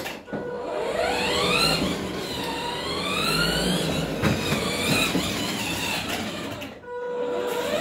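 Battery-powered ride-on toy jeep's electric drive motors and gearboxes whining as it drives, the whine rising and falling in pitch as it speeds up and slows.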